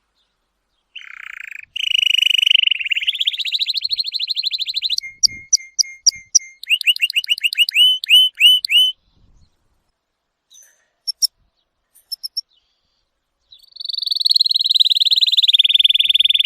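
Songbird singing: a long rolling trill, then a quick run of repeated chirps at about four or five a second, a few scattered high notes, and another long trill near the end, with dead silence between phrases.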